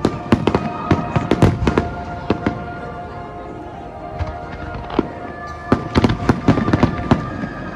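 Fireworks exploding overhead in rapid volleys of bangs and crackles, with a lull in the middle before the barrage picks up again. Music plays steadily underneath.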